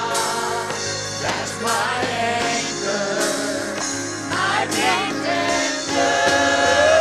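Gospel worship music: the praise team and congregation singing with a live band, steady bass and cymbal strokes.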